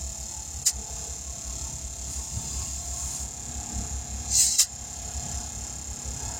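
Service truck's engine or air compressor running steadily, with a sharp click less than a second in and a short hiss of air ending in a click about four and a half seconds in, as the tire is aired up and its pressure checked.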